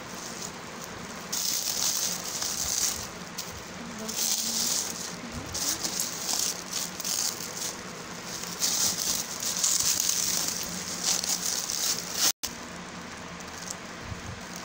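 Bubble wrap and plastic film being crinkled and pulled off a plastic bottle, crackling in repeated bursts, then stopping abruptly near the end.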